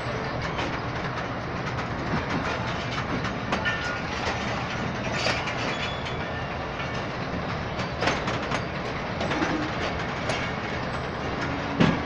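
Passenger coaches of the Millat Express rolling past, a steady rumble with the wheels clicking irregularly over the rail joints and a louder clank near the end.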